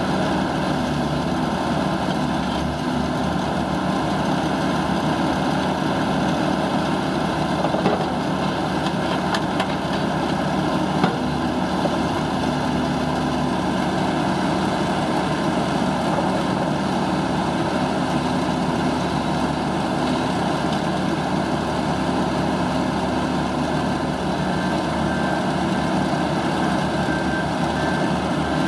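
2007 Ditch Witch XT1600 crawler loader's engine running steadily while its backhoe attachment is worked. There are two light knocks partway through.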